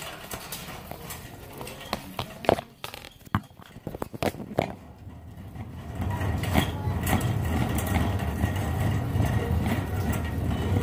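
Metal shopping cart being pushed across a store floor, heard from inside the cart: a few sharp knocks about two to five seconds in, then a steady low rumble from about six seconds in.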